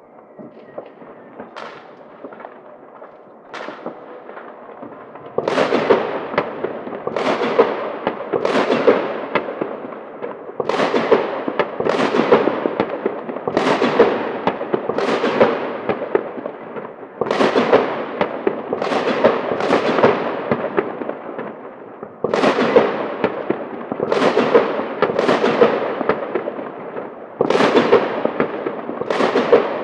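New Year's Eve street fireworks: a few scattered small pops, then from about five seconds in a steady run of loud bangs, roughly one every second and a half, each trailing off in a crackle.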